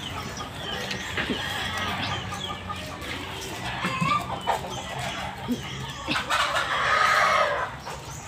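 Chickens clucking, with a rooster crowing for about a second and a half near the end, the loudest sound here.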